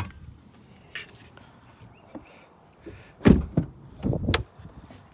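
Pickup truck door being handled: a soft knock, then a cluster of dull, heavy thunks a little past halfway as the crew-cab rear door's latch releases and the door is worked open.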